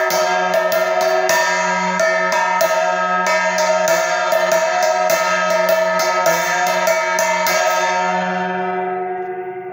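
Temple bells rung rapidly during aarti: quick, uneven metallic strikes over a dense, steady ringing. The strikes stop about eight seconds in and the ringing dies away.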